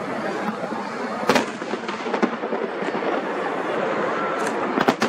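Fireworks going off: a sharp bang about a second in and two more close together near the end, over a continuous dense crackle.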